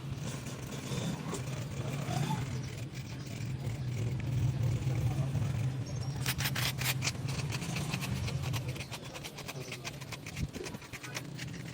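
A steady low machine hum, with a burst of rapid crackling about six seconds in; the hum fades out near the end.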